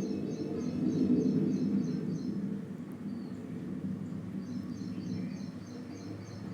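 Low rumble of a passing airplane fading into city background noise, heard from inside a room; it swells about a second in, then eases. A small bird chirps in quick repeated runs, once near the start and again in the second half.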